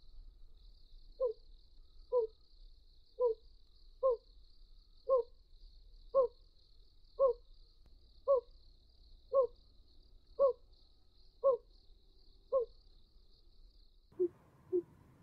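An owl hooting: a series of short, evenly spaced single notes, about one a second, over a faint steady high hiss. Near the end the calls change to a lower, quicker series with more background noise.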